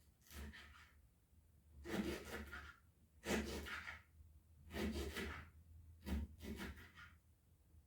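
Kitchen knife sawing through fresh ginger root on a wooden chopping board, about six slow cutting strokes, one every second or so.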